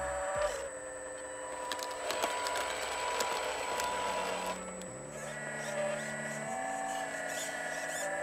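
Whine of a radio-controlled hydraulic excavator's electric-driven hydraulic pump, running steadily with its pitch shifting in steps a couple of times, about five seconds in and again a second and a half later.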